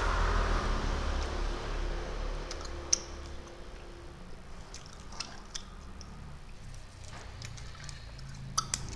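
Plastic candy tubes and wrappers being handled and fiddled open, giving a few light clicks and ticks (one about three seconds in, a couple around five seconds, a pair near the end) over a steady low hum.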